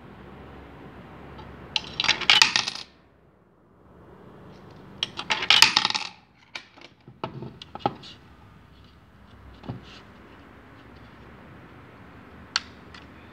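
Coins dropping through a JY-922 electronic coin acceptor and clinking down into the coin box, twice, about two seconds in and again about five seconds in; each coin is accepted and counted. A few lighter clicks follow, with one sharp click near the end.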